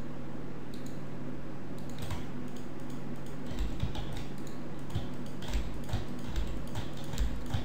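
Computer keyboard keys and mouse buttons clicking at irregular intervals as shortcuts are pressed and vertices selected, starting about two seconds in, over a steady low hum.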